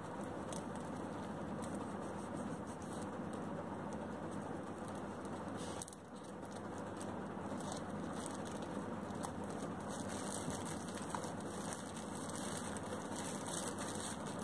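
Plastic courier wrapping rustling and crinkling as it is peeled and pulled open by hand, over a steady background noise.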